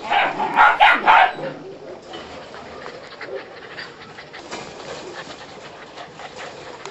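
Puppies barking: four quick, loud barks in the first second and a half, then only quieter background noise from the playing litter.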